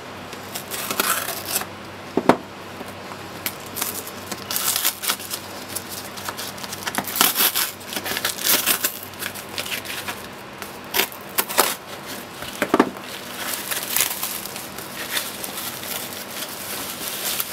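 A parcel being cut and torn open by hand: a knife slitting packing tape, the tape and plastic wrapping pulled off, and bubble wrap crinkling, in irregular bursts with sharp clicks and knocks.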